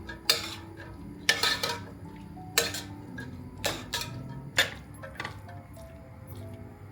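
Dishes and utensils clinking as they are handled: six or seven sharp knocks, about one a second, fading out near the end. Soft background music runs underneath.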